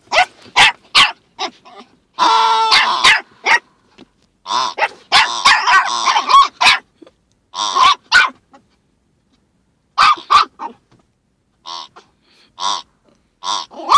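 Small terrier barking and yapping at a toy pig in short, sharp, irregular bursts, with growling between some of them.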